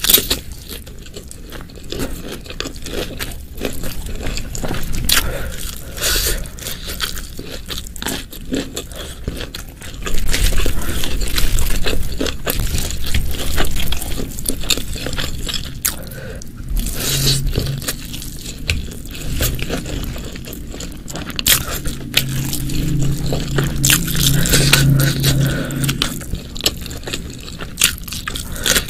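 Close-miked eating sounds: biting and chewing spicy shredded chicken, beef-tendon satay and rice, with many sharp wet clicks and scrapes. It gets louder about a third of the way in, and a low steady hum comes in briefly past the middle and again near the end.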